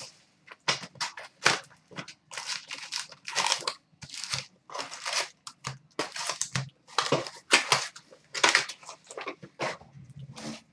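Plastic wrapping on a hockey card box and pack being crinkled and torn open, in a quick string of short crackling bursts.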